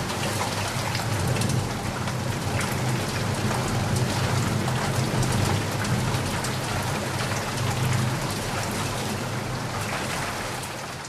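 Heavy rain falling steadily: a dense, even hiss of drops with a low steady rumble underneath. It begins to fade out near the end.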